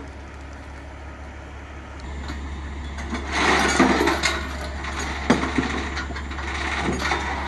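Heavy truck engine running, growing louder about two seconds in as it works, with a surge of noise a second later and a sharp metallic knock about five seconds in.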